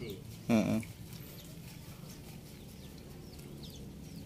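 Small birds chirping repeatedly, with one short, loud voice-like call about half a second in.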